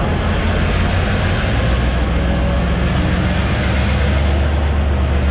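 EMD G22CU diesel-electric locomotive's two-stroke V12 EMD 645 engine running under load as the locomotive pulls away. About a second and a half in, its low drone steps down to a deeper, stronger note.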